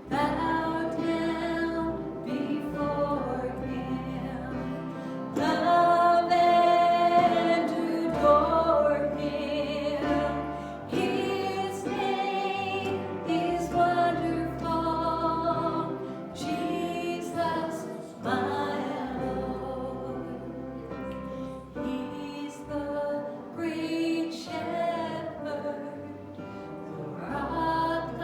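Worship music: a group of voices singing a praise song over instrumental backing with a steady bass.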